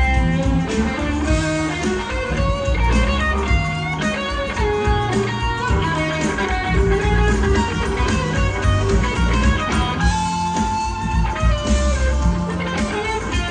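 Live rock band playing, with an electric guitar carrying a lead line of held and sliding single notes over bass, drums and keyboards.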